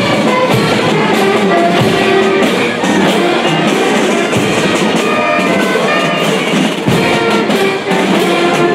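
Music with drums, playing steadily throughout.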